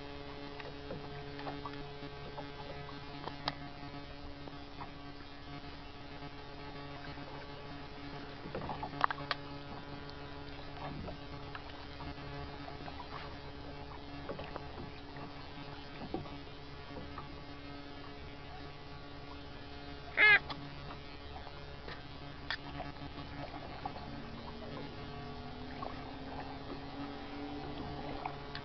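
Kayak paddling: scattered light knocks and splashes of the paddle over a steady low hum. One short, loud squeal about two-thirds of the way through.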